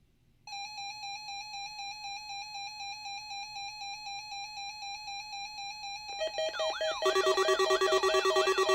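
Synthesized electronic alert tones. A steady tone comes in half a second in, pulsing several times a second. About six seconds in, warbling, repeating sweeps join it, and a second later the whole sound gets louder with more pulsed tones stacked together.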